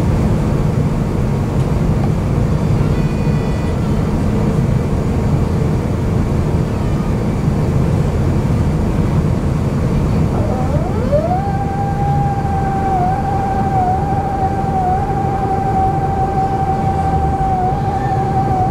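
Steady low rumble and hiss of an Airbus A350-900's cabin in flight on approach. About ten seconds in, a whine rises quickly in pitch and then holds nearly steady, with slight dips.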